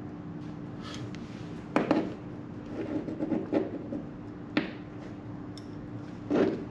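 Knife slicing the outer jacket of a trolling motor power cable: a few short scrapes and clicks, with a bout of rubbing in the middle, over a steady low hum.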